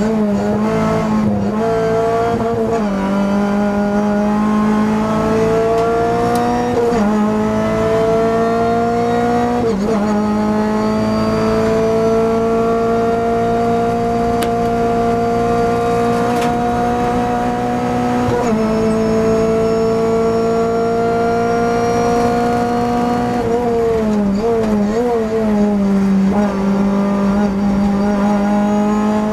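Renault Clio Cup race car's four-cylinder engine heard from inside the cockpit, accelerating up through the gears with quick upshifts about 3, 7, 10 and 18 seconds in. About 24 to 26 seconds in, it downshifts with throttle blips under braking.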